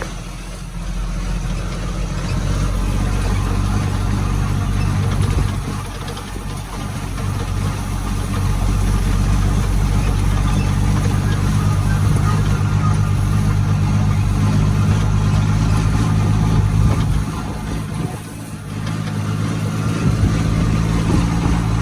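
A vehicle's engine running steadily at a low, even pitch, briefly easing off twice, typical of a farm truck or tractor hauling hay bales.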